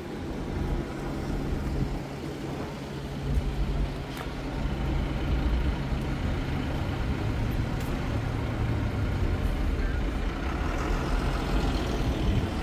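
A large engine running steadily, a low hum that grows louder about four seconds in, over a haze of outdoor noise.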